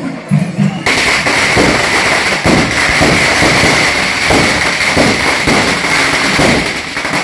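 A long string of firecrackers going off in a rapid, dense crackle of many small bangs, starting about a second in and cutting off suddenly near the end.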